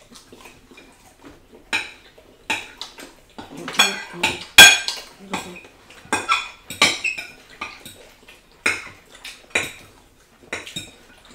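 Metal forks clinking and scraping on ceramic plates and glass dishes, in irregular sharp clinks, the loudest a little over four and a half seconds in.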